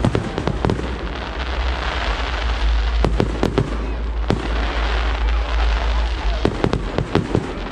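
Fireworks display: repeated sharp bangs, clustered in volleys, over a continuous crackling hiss and a steady deep rumble.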